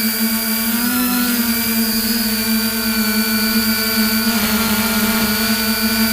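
Quadcopter drone's propellers whining steadily in flight, several rotor pitches drifting slightly up and down against each other as the motors adjust.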